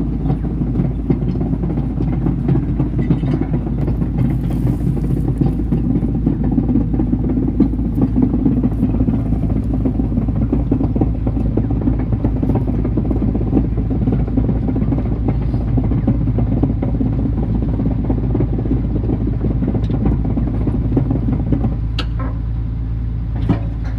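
Truck-mounted borewell drilling rig running steadily: its engine and air compressor drone while the drill rod turns in the hole, with a dense rattle throughout. A couple of sharp knocks near the end.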